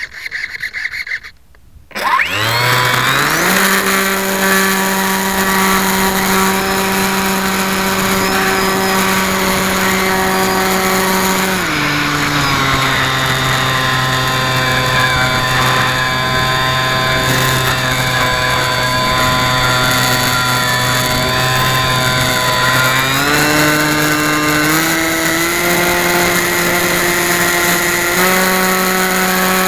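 Radio-controlled model airplane's electric motor and propeller, heard close from a camera on the plane. About two seconds in it spins up from rest to a steady high whine at full throttle. Around twelve seconds in it is throttled back to a lower pitch, then opened up again in steps near the end.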